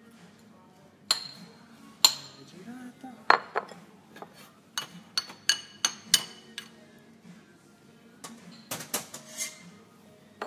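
Ceramic bowls and utensils clinking and knocking on a counter as food is plated: a string of sharp, ringing clinks. There are single strikes about one, two and three seconds in, a quick run in the middle, and a few more near the end.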